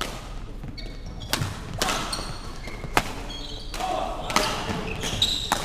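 Badminton rally: several sharp racket strikes on the shuttlecock, the crispest about three seconds in, with short squeaks from players' shoes on the wooden court floor, echoing in the large hall.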